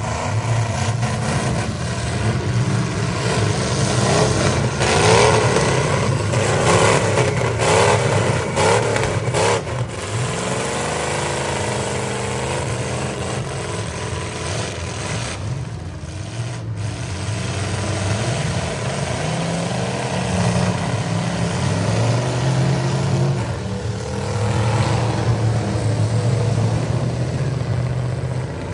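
Several demolition-derby pickup truck engines running and revving hard, pitch swinging up and down, with a run of sharp crashes of metal hitting metal about four to ten seconds in.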